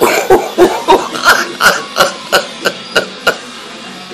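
A person laughing hard right at the microphone: about a dozen sharp bursts, some three a second, fading out over about three seconds.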